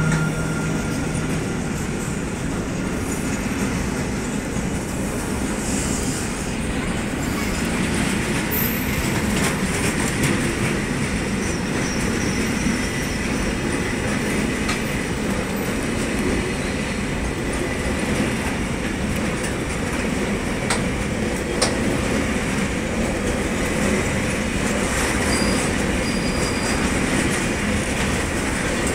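Container wagons of a long freight train rolling past steadily: a continuous rumble of steel wheels on rail, with a couple of sharper knocks about two-thirds of the way through.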